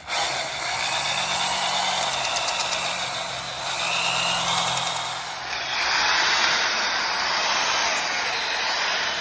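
Pneumatic air drill running steadily, with a hissing whir, as it bores holes into the crown of a seized cast piston in a 440 big-block. The holes are being drilled to weaken the stuck piston and free it. The sound stops briefly right at the start and dips a little past halfway, then runs louder.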